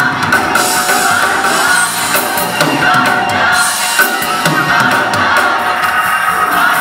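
Large gospel choir singing in full voice, with rhythmic hand claps on the beat.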